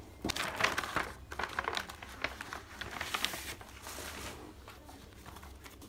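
Crinkling and rustling of a paper sheet being picked up and handled, with many small sharp crackles, dying away about four seconds in.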